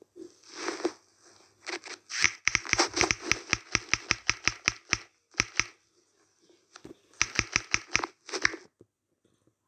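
Typing on a smartphone's on-screen keyboard: quick key clicks about six a second, in a run of roughly three seconds starting about two seconds in, then a shorter run near the end. A brief scuffing sound comes just under a second in.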